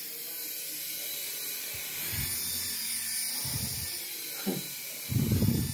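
Tiny electric rotor motors of a sensor-controlled toy mini helicopter, giving a thin, steady, high-pitched buzz as it hovers. A few dull low bumps come through as well, the loudest near the end.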